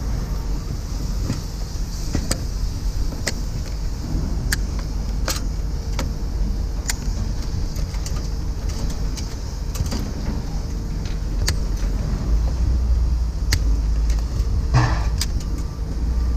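Vehicle on the move: a steady low rumble of engine and road, louder in the last few seconds, with scattered light rattles and clicks.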